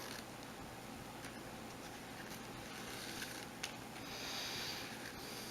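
Faint handling sounds of hemp cord being worked into a square knot: a soft rustle of cord rubbing, with one small click about three and a half seconds in and a slightly louder swish around four seconds in.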